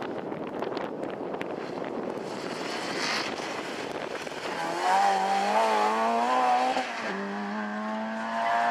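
Rally car engine working hard through a tight chicane. For the first few seconds there is a rushing mix of engine and tyre noise, then a loud, wavering engine note as the car is revved and blipped for about two seconds, settling into a steadier note near the end.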